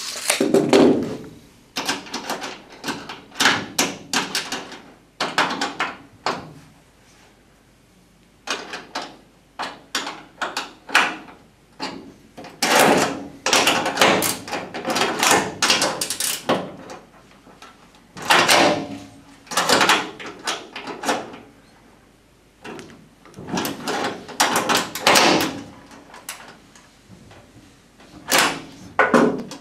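Irregular clunks, clicks and scrapes of a metal mounting bracket and loose washers and nuts being handled and set in place on a plastic truck bed liner, in short bursts with brief pauses between.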